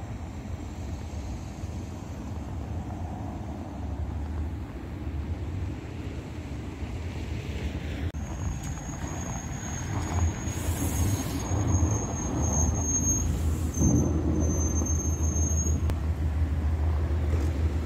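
Steady low rumble of road vehicles on a snowy street, growing louder near the end as a school bus idles close by, with a thin high whine that comes and goes from about eight seconds in.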